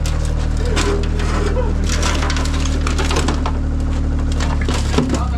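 A steady low engine-like hum with an irregular run of clicks, knocks and rattles over it.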